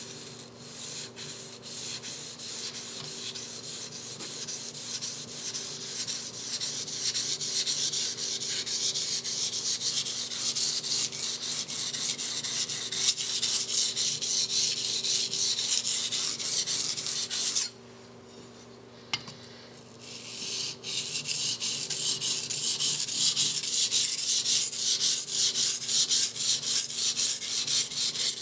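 Knife blade being pushed back and forth on a coarse 320-grit Nubatama Bamboo waterstone, a rapid run of gritty scraping strokes. The strokes pause for a few seconds about two-thirds of the way through, then start again.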